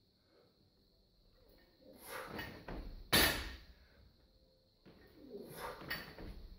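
A weightlifter's forceful breathing during a barbell power snatch, with a sharp bang about three seconds in, the loudest sound, and another right at the end as the bar is pulled up.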